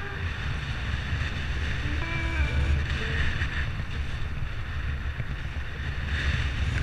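Wind buffeting the microphone of a camera on a moving bicycle, with a steady low rumble of wind and road noise. About two seconds in, a short run of brief tones steps through several pitches.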